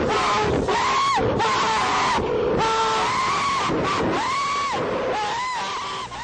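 Slingshot-ride passengers screaming in long, repeated held cries. A steady rush of wind noise runs under them.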